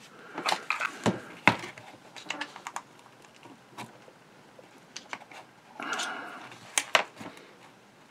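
Scattered sharp clicks and light knocks of a Singer 201-2 potted motor's armature assembly being worked at while it sticks in its housing, with a brief rustle about six seconds in.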